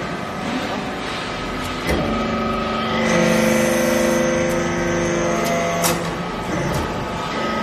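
TCM hydraulic metal-chip briquetting press running, its ram pressing swarf in the hopper into a briquette. From about three seconds in, a louder, steady hum of several tones sounds as the press works under load, cut off by a sharp click about six seconds in.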